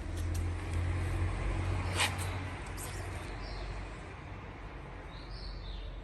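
Steady low rumble of distant traffic, heaviest in the first half, with a sharp click about two seconds in and a faint high chirp near the end.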